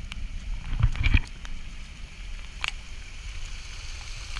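Low rumble of wind and handling noise on a moving camera's microphone, heaviest about a second in, with a few sharp clicks and knocks.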